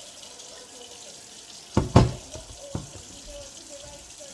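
Kitchen tap running into a sink, with a quick run of three or four knocks about two seconds in as something is handled in the sink.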